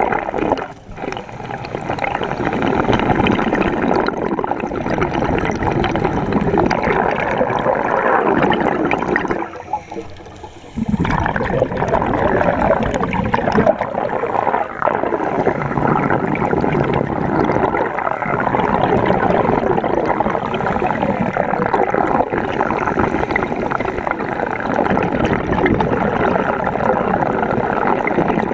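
Underwater rushing and bubbling of water and scuba exhaust bubbles against an underwater camera's housing during a drift dive. It dips briefly about a second in and falls to a lull for a second or so around ten seconds in.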